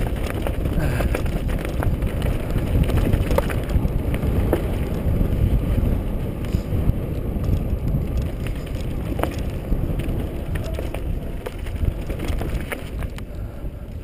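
Mountain bike riding along a dirt singletrack: steady wind buffeting on the camera microphone over tyre noise, with scattered clicks and knocks from the bike rattling over bumps.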